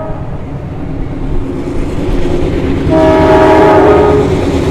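Train horn sounding a multi-note chord, with the tail of one blast at the very start and a long blast from about three seconds in, over the low rumble of the train.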